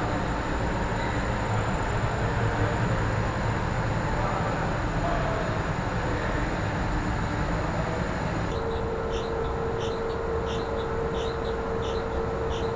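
Steady mechanical rumble and hiss of paint-shop machinery. About two-thirds of the way through it changes abruptly to a steady hum with a short high chirp repeating about twice a second.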